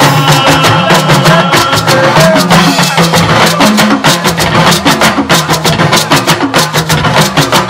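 Apala band playing: talking drums and hand percussion beat a fast, steady rhythm over low pitched drum notes.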